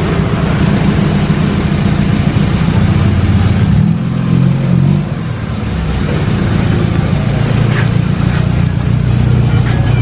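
Mitsubishi sedan's engine running steadily, its pitch lifting slightly and settling back about four to five seconds in.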